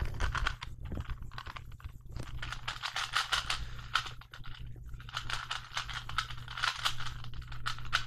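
Plastic Rubik's cube being twisted quickly by hand: a rapid, irregular run of clicks and clacks as its layers turn.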